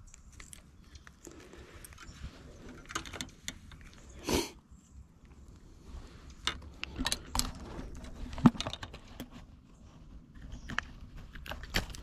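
Scattered light clicks and knocks with short rustles from things being handled close to the microphone, with a longer scrape about four seconds in.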